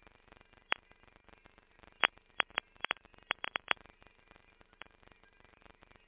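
Grainy, glitchy digital audio from a failed attempt at making a song sound low quality: irregular sharp clicks and pops over a faint hiss, scattered singly and bunched into a quick cluster around the middle.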